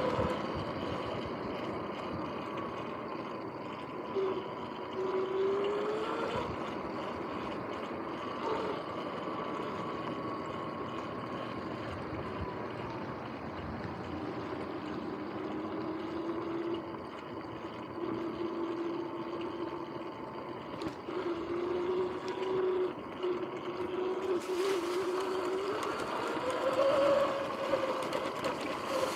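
Sur-Ron X electric dirt bike ridden slowly: the motor's whine slides up and down in pitch with speed over tyre and wind noise. The bike is running on bearings its owner calls noisy.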